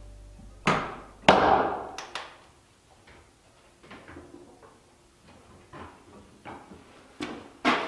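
Knocks and bangs of wood being struck and handled: two loud ones about a second in, then a scatter of lighter knocks.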